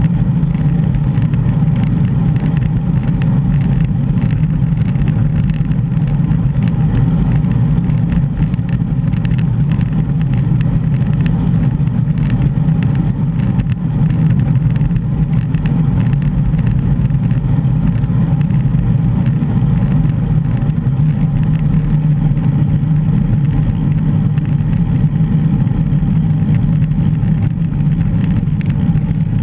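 Steady low rumble of wind and road noise on a bicycle-mounted GoPro while riding, with faint scattered ticks of bumps and rattles.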